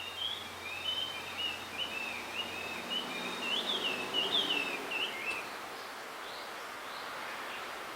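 Male blue rock thrush singing its courtship song: a quick, varied warbling phrase of whistled notes that ends about five and a half seconds in, leaving a steady background hiss.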